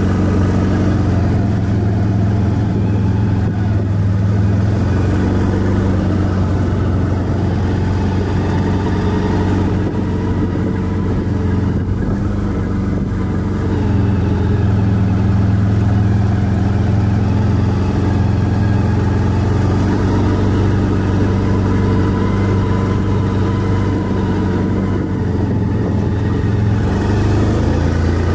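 ATV engine running steadily at low speed, its note a little louder from about halfway through.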